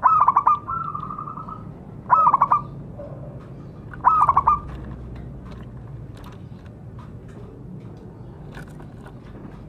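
Zebra dove (perkutut) calling: three loud bursts of quavering, trilled cooing about two seconds apart, the first followed by a held note. After about five seconds only faint scattered clicks remain.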